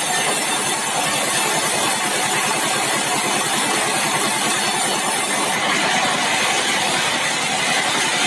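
Sawmill machinery running steadily: an engine drone with rapid pulsing under a dense, even hiss.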